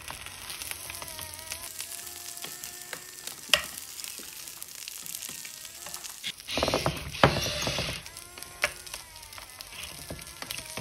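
Rice, chicken and mixed vegetables sizzling on an electric hot plate pan while a toy RC excavator stirs them. Its small electric motors whine with gliding pitch, and its plastic bucket scrapes through the food and knocks on the pan a few times, with a louder scraping rush about two-thirds of the way through.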